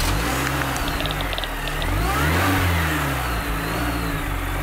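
Car engine revving as a logo-intro sound effect: its pitch climbs to a peak a little over two seconds in, falls back, then starts rising again near the end.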